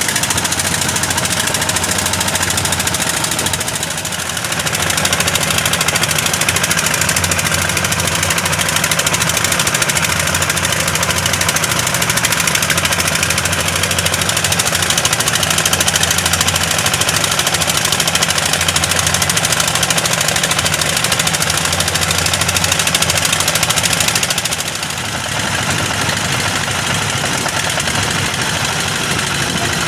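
Fishing boat's open-mounted Dongfeng diesel engines running steadily under way, with the rush of the wake.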